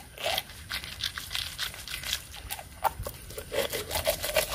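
Whole fish scrubbed back and forth by hand on a wet, rough concrete slab: a quick run of wet scraping strokes. Rubbing it on the stone strips off the slime and its fishy smell.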